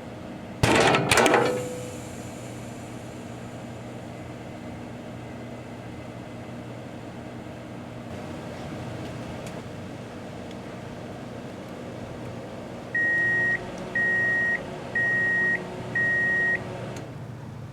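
Microwave oven running with a steady hum, broken by two loud sharp cracks about a second in. Near the end it gives four beeps, about one a second, the signal that the cooking cycle has finished, and the hum stops soon after.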